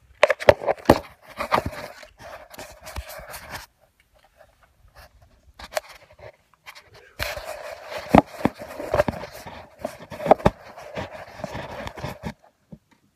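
Handling noise from a phone camera being adjusted by hand: fingers rubbing, scraping and knocking right against its microphone, in two bouts with a pause of a few seconds between them.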